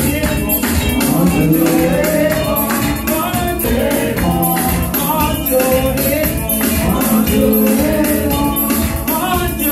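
A woman singing a gospel worship song into a microphone over instrumental accompaniment with a steady percussion beat.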